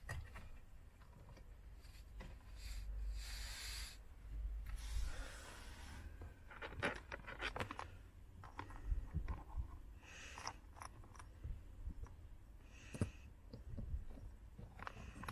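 Faint handling noises of small plastic parts: scattered light clicks and stretches of rubbing and scraping as a blade fuse is pulled with a plastic fuse puller and fitted into a fuse tap.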